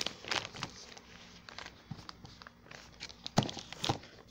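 Plastic courier mailer bag crinkling and rustling in irregular bursts as it is handled and turned over, with two sharper knocks about three and a half seconds in.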